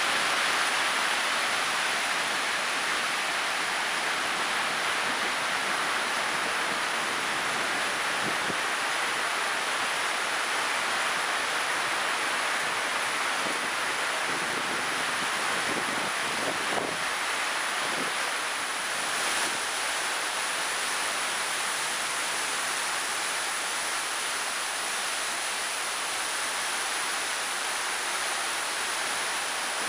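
Heavy thunderstorm rain pouring down, a dense, steady hiss.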